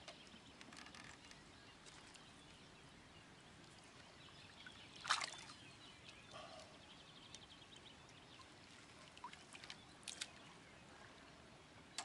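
Faint water sloshing as a barbel is brought to the bank in a landing net, with one louder splash about five seconds in and a few small knocks later. Faint bird calls.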